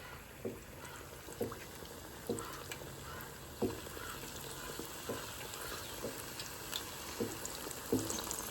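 Chicken wings deep-frying in hot peanut oil, bubbling steadily with a soft pop roughly every second.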